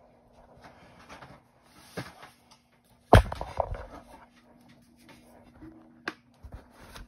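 Red silicone spatula stirring lumps of hard oil in lye water in a stainless steel pot. About three seconds in there is one loud knock against the pot, followed by a brief ring, and a few small clicks come near the end.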